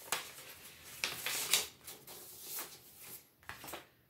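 A vinyl record and its paper sleeve and cardboard jacket being handled, with several short rustles and sliding scrapes as the record goes back into its sleeve.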